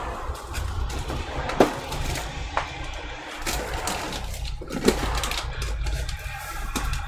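Rummaging through small tools and parts on a workbench: scattered clicks and knocks, two sharper knocks about a second and a half and five seconds in, over a steady low rumble.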